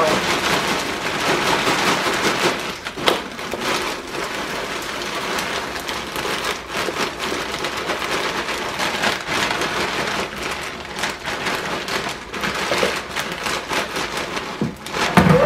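Malt-O-Meal Tootie Fruities cereal rings poured steadily from a plastic bag into a clear plastic storage container: a continuous dense rattle of many small pieces landing on the plastic and on each other.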